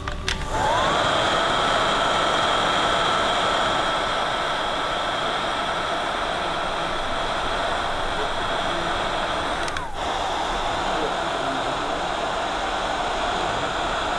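Electric heat gun switched on, its fan motor whining up in pitch within the first second, then blowing steadily as it shrinks heat-shrink tubing over soldered handlebar wire splices. The sound dips briefly about ten seconds in and picks back up.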